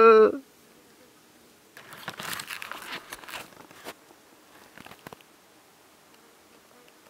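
A long, steady, pitched call ends just after the start, dropping in pitch as it cuts off. Then comes about two seconds of rustling and crunching in dry leaf litter and undergrowth, with a few more crunches about five seconds in.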